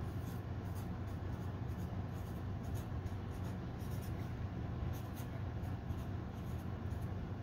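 Black Sharpie permanent marker writing on red construction paper, a series of short scratchy strokes as letters are formed, over a steady low hum.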